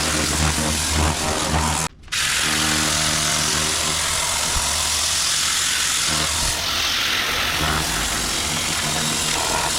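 Pressure washer running steadily: a motor hum under the hiss of the water jet. The sound drops out for a moment about two seconds in.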